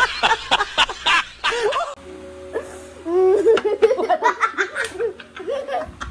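Hearty laughter in rapid 'ha-ha' strokes, broken about two seconds in by a second of steady musical tones, then children laughing and giggling.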